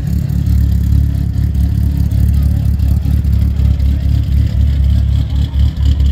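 Car engine running with a steady, deep low rumble.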